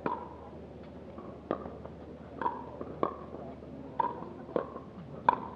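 Pickleball rally: the hollow plastic ball pocks sharply off hard paddles about seven times, each hit with a short ringing tone.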